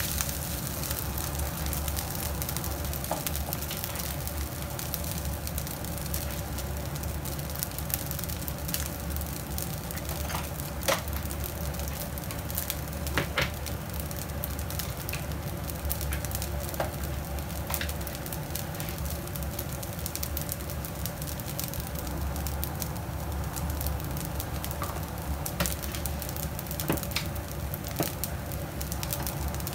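Rice frying in a nonstick pan over a gas flame: a steady sizzle with scattered sharp pops and clicks.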